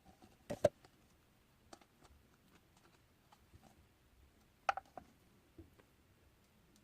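Slime being pressed and played with by hand, giving a few small sharp clicking pops: two about half a second in and a louder cluster near the five-second mark.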